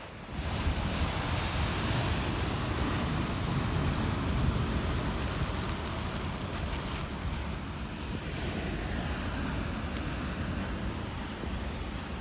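Ocean waves breaking and washing in, with wind rumbling on the microphone: a steady rush of noise that swells over the first few seconds.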